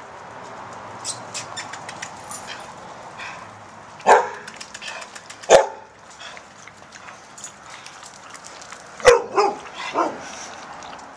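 Puppies giving short, sharp barks: one about four seconds in, another a second and a half later, and a quick run of three near the end, with faint light scuffling in between.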